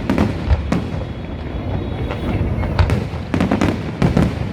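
Aerial fireworks going off in a display: a string of sharp bangs and crackles over a continuous low rumble.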